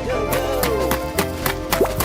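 Background music for a children's cartoon: held melodic tones over a quick, regular percussive beat, with a few short bending pitch glides in the first second.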